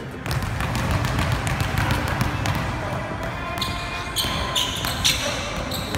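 Basketball dribbled on a hardwood gym floor: a quick run of bounces, with short high squeaks in the second half.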